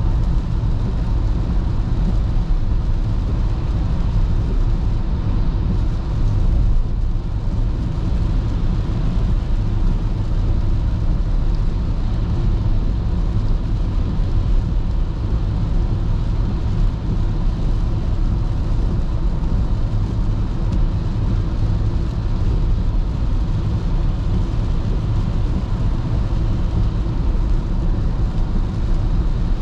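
Car driving on a wet highway in the rain, heard from inside the cabin: a steady low rumble of engine and tyres on the wet road surface.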